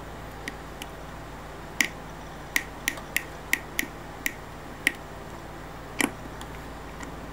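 Small sharp clicks from the parts of a Seiko 7009 automatic watch movement being handled and worked by fingers and a small screwdriver during disassembly: about ten separate clicks, most between two and five seconds in and one last click about six seconds in, over a faint steady hum.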